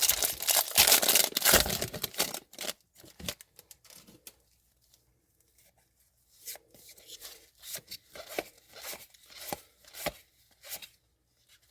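A hockey card pack's wrapper being torn open with a loud, crinkly rip lasting about two seconds. After a short lull, many soft clicks and rubs follow as the cards are handled.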